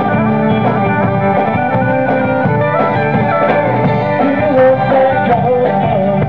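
Live electric band playing amplified music, with guitar, bass and drums, during a sound check.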